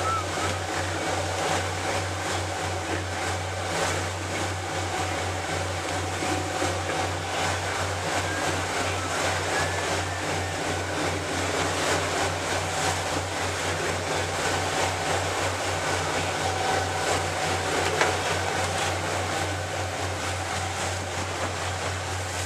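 Motorboat under way at steady speed: the engine runs with a low, fast-pulsing hum under a steady rush of wind and water.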